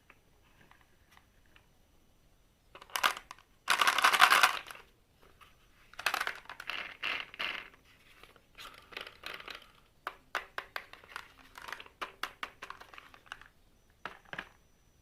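Marbles rolling and clacking down a wooden HABA slope marble run, in several separate runs. One dense loud rattle comes about four seconds in, and quick runs of clicks follow later on.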